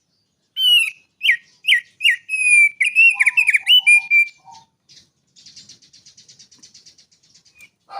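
Small songbird singing: a run of loud, sharp whistled notes, many slurring downward, then a fast, dry, buzzy chatter past the halfway point.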